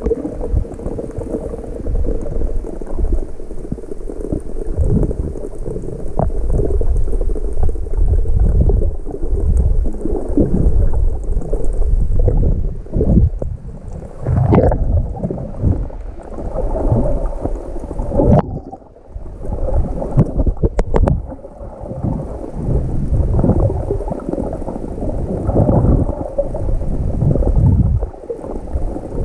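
Muffled underwater sloshing and gurgling from a swimmer's strokes, heard through a submerged camera, with irregular surges and splashes.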